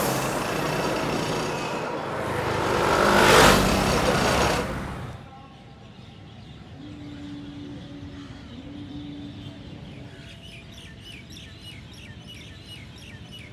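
Street traffic: a vehicle passes close by, its noise swelling to a peak about three and a half seconds in. The noise then cuts off abruptly to a much quieter outdoor ambience, with a brief steady hum and then short repeated chirps near the end.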